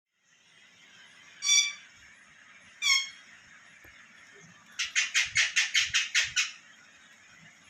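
Pet parrot calling: two loud squawks about a second and a half apart, the second falling in pitch, then a fast run of about nine short squawks, some five a second.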